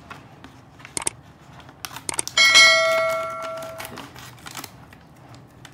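Subscribe-button animation sound effect: a few short clicks, then a single bell ding about two and a half seconds in that rings out and fades over about a second and a half.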